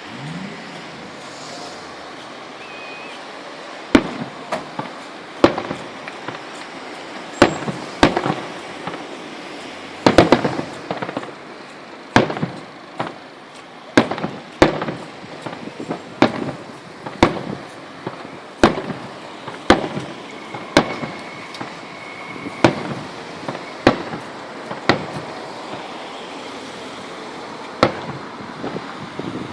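Aerial firework shells bursting: a string of sharp booms about every one to two seconds, starting about four seconds in, each trailing off briefly.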